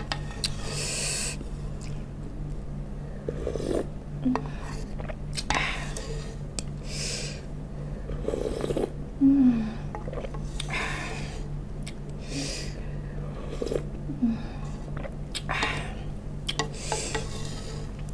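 Repeated slurping of broth from a wooden spoon, a sip every second or two. Sharp clicks of the spoon against a cast-iron skillet come in between, along with small mouth noises.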